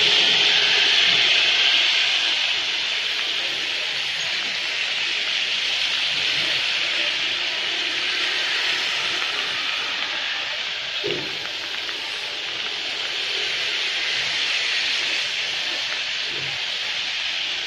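Steady hiss of rain and traffic on a wet city street.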